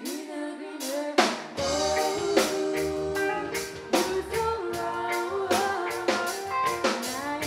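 Live band playing: a woman singing lead with backing singers over a drum kit and electric guitar. The low end of the bass and kick drum comes in about a second and a half in.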